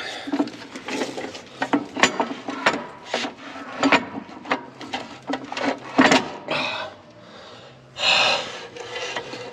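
Heavy truck clutch, pressure plate and disc, being held up by hand and worked against the flywheel to seat it, with irregular metal knocks, clicks and scraping.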